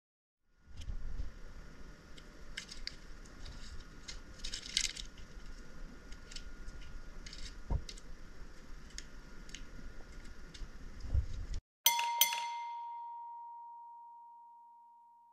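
Gloved hands wrapping tape around a cable, with small clicks and rustles of the tape and gloves. About twelve seconds in, after an abrupt cut, a single bright chime rings out on one steady tone and fades slowly. It is the loudest sound here.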